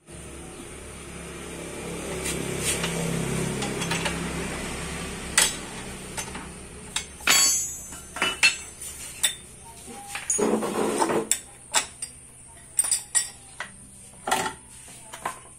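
Metal clinks and knocks of hand tools and CVT parts being handled while a scooter's belt drive is taken apart: a wrench on the drive-pulley nut, then the pulley face and clutch parts pulled off, in a run of separate sharp clinks. A low steady hum runs under the first few seconds.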